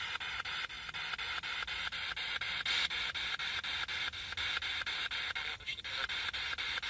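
Handheld spirit box (ghost box radio scanner) sweeping through radio frequencies: a steady hiss of static chopped by even clicks about five times a second as it jumps from station to station.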